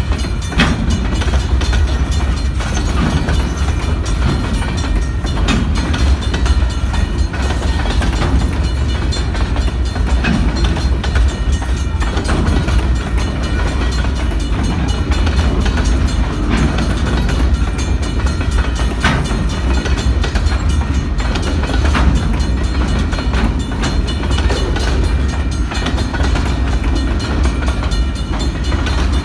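Open-top freight cars rolling past: a steady heavy rumble of steel wheels on rail, with scattered sharp clicks and clanks as the wheels cross rail joints.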